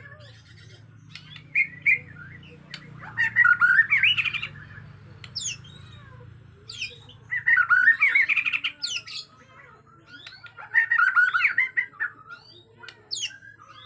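Bornean shama (murai batu) singing agitatedly: three loud bursts of rapid, varied chattering song, with sharp whistled notes between them.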